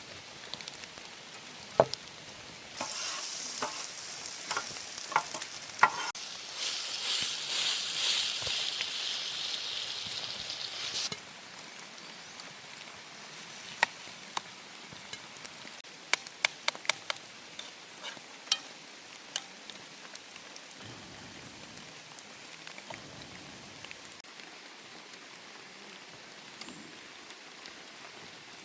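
Food sizzling in a hot pan, starting about three seconds in and cutting off abruptly around eleven seconds, with sharp clicks of a utensil or lid against the pan before it and again a few seconds after. A steady patter of rain runs underneath throughout.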